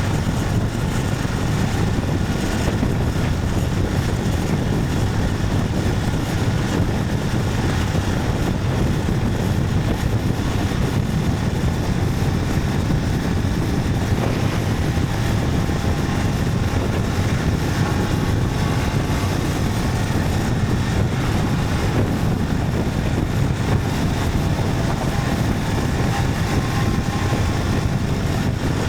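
Motorcycle being ridden at a steady speed: the engine running under a steady, heavy rush of wind noise, with no change in pace.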